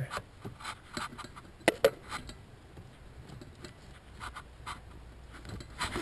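Faint rustling and scraping of hands moving over floor carpet and wiring, with scattered light clicks and two sharper clicks close together a little under two seconds in.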